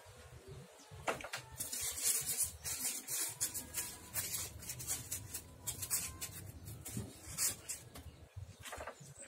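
Styrofoam panels scraping and rubbing against the wooden tub frame and each other as they are pressed into place: a run of short, irregular scrapes.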